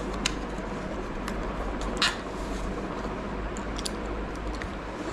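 Small plastic clicks and rustles of a GoPro mount and thumbscrew being pulled from a cardboard box insert and handled, the loudest click about two seconds in, over steady background noise.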